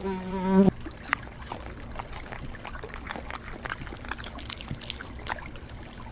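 A frog's low, throbbing croak ends under a second in, giving way to water trickling with scattered small clicks.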